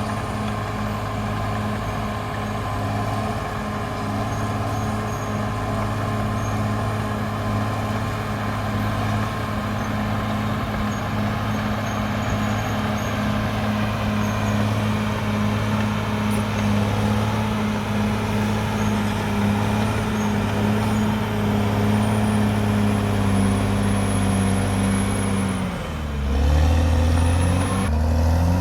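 Caterpillar D6R XL bulldozer's diesel engine running steadily at working speed. Near the end its pitch dips and climbs back up, and it is louder for a moment.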